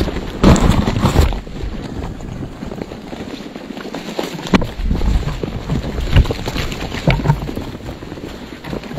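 A crowd of vultures jostling and feeding on a deer carcass right at the microphone: a rush of wing flaps and scuffling with sharp knocks scattered through, as wings and bodies brush the microphone. The loudest flurry comes about half a second in.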